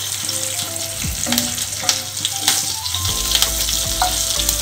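Whole fenugreek seeds, dried red chillies and green chillies sizzling in hot mustard oil in a kadhai, the tempering (tadka) stage of an Indian curry. A steady hiss with scattered sharp pops and clicks as a wooden spatula stirs the spices.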